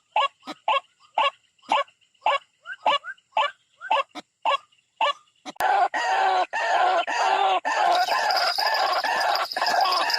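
White-breasted waterhen (ruak-ruak) calling: sharp, harsh call notes repeated about twice a second. After a sudden click a little past halfway, they give way to a dense, overlapping chorus of calls, joined near the end by a steady high-pitched whine.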